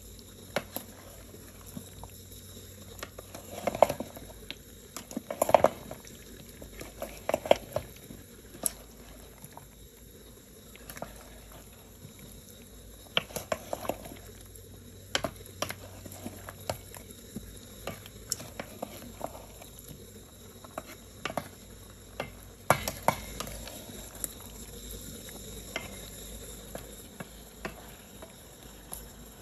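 Kitchen sounds: scattered knocks, clinks and short scrapes of utensils against pots and dishes over a low steady hiss.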